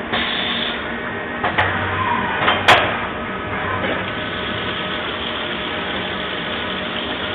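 Mori Seiki MV Junior CNC vertical machining centre running steadily with a low hum while its spindle machines valve bodies under flood coolant, with two short sharp clicks in the first three seconds.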